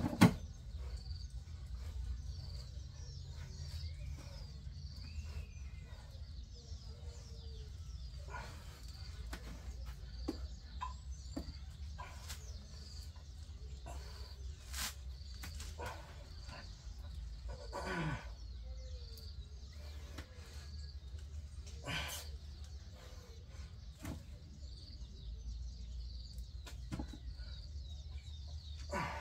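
Birds chirping in the background, a short high chirp repeating every second or so, over a low steady hum. Scattered knocks and clicks are mixed in, and a sharp knock right at the start is the loudest sound.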